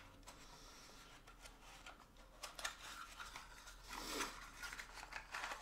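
Faint rustling and scraping of a small cardboard box being opened by hand, its flaps pulled back, with a few light clicks. It grows a little louder about four seconds in.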